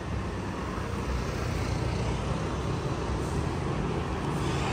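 City street traffic: a steady rumble of passing motor vehicles, growing a little louder near the end.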